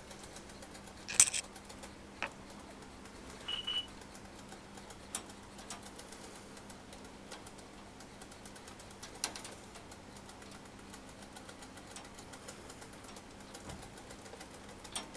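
Scattered light clicks and taps from the wire-mesh cage and its metal bars being handled, the loudest about a second in, with a short high double squeak about three and a half seconds in. A faint steady hum runs underneath.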